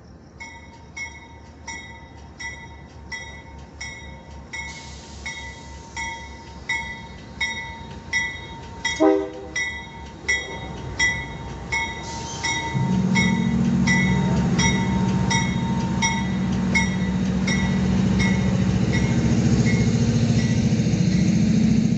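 Diesel-electric freight locomotives hauling a loaded coal train approach and pass close by, with a short horn blast about nine seconds in. A warning bell dings about once every 0.7 s through the first twelve seconds, then the lead locomotives' diesel engines take over, loud and steady, as they go by.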